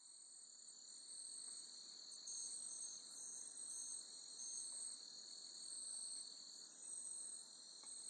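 Faint, steady, high-pitched insect chorus, like crickets trilling continuously without clear pulses, over a low background hiss.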